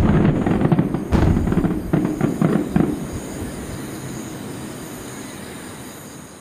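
Fireworks crackling: a dense run of many small pops from the falling sparks, with a louder burst about a second in, dying away over the last few seconds.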